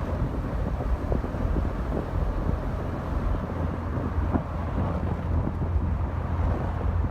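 Wind buffeting the microphone: a steady low rumble, with a few faint scattered taps.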